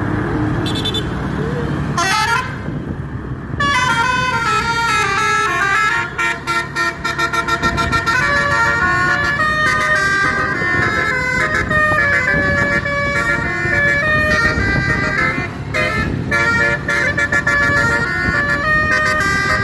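Nine-note Basuri telolet bus horn playing a fast stepping melody over the rumble of the bus's engine. A short rising swoop about two seconds in leads into the tune, which starts about four seconds in and runs on.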